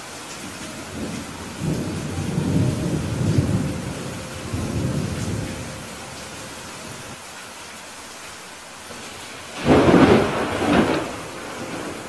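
Steady rain with thunder: a low rolling rumble from about two to five seconds in, then a sudden, louder thunderclap near the end that dies away over a second or so.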